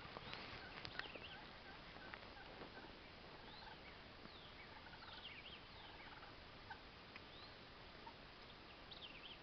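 Faint gobbling of wild turkeys in a quiet field, with thin, high bird chirps scattered throughout.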